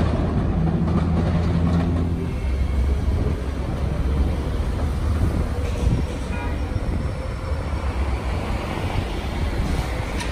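Electric trolleybus on overhead wires pulling away from a stop, with street traffic around it. A steady low hum for about the first two seconds gives way to an even low rumble.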